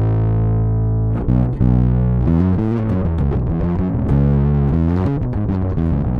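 Electric bass played through an overdrive effect, giving a gritty, distorted tone: a long held low note, then from about a second in a busy run of quick notes.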